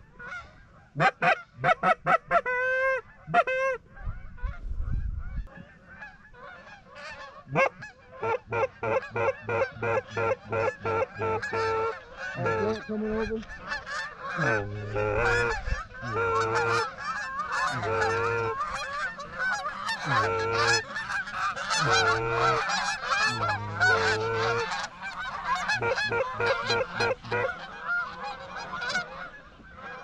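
Canada geese honking: many short honks, one after another. A few loud, close ones come in the first seconds, and from about twelve seconds in the honks overlap in a dense, steady chorus.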